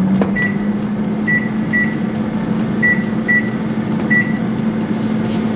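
Air fryer's fan running with a steady hum, while a microwave's keypad gives six short beeps as its timer is set.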